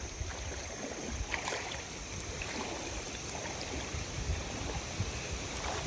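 Water splashing and lapping, with a few small scattered clicks and knocks.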